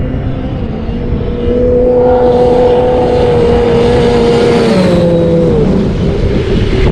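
Arctic Cat 1000 two-stroke snowmobile held at high throttle as it skims across open water, its engine note steady and loud, then dropping in pitch as it passes about five seconds in.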